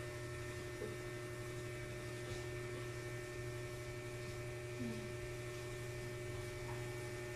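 Steady electrical hum made of several constant tones, unchanged throughout.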